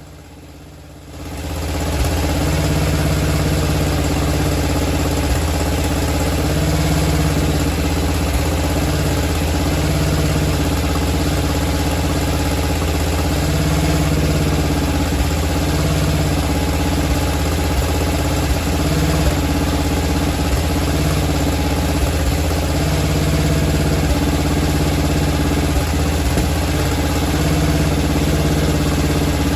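1999 DR Brush Mower's engine idling steadily as it warms up after a cold start. The sound comes up about a second in and then holds at an even pitch and level.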